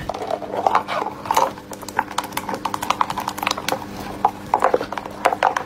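Clear plastic tub knocking and scraping across a wooden tabletop in a rapid, uneven run of clicks and rattles, over a faint steady hum.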